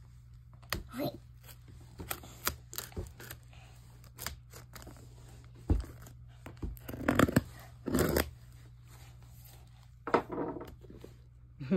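Handling of a plastic-wrapped cardboard parcel on a wooden floor: scattered taps, knocks and rustles, busiest about seven to eight seconds in.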